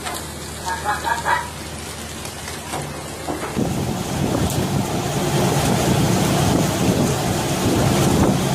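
Steady rushing noise of wind and splashing sea on the deck of a tuna pole-and-line fishing boat, with a brief call of voices about a second in. About three and a half seconds in the noise becomes louder and rougher.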